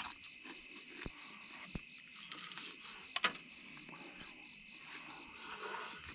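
Steady chirring of night insects, with a few short crunches from chewing crispy fried chicken, about one, two and three seconds in.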